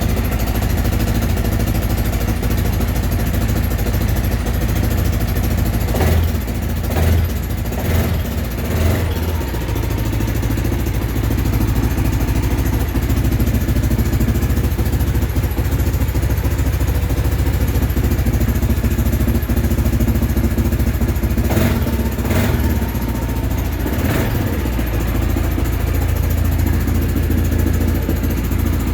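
Quad bike (ATV) engine idling steadily, blipped briefly a few times about six to nine seconds in and again a few times around twenty-two to twenty-four seconds in, settling back to idle after each.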